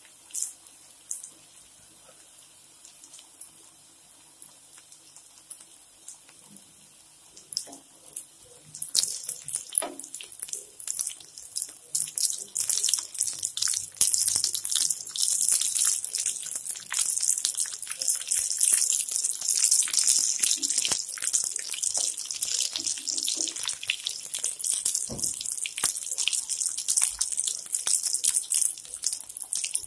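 Bread-crumbed potato and carrot veg cutlets deep-frying in oil in a pan: a hissing sizzle with dense crackling. It is faint for the first several seconds, then much louder from about nine seconds in.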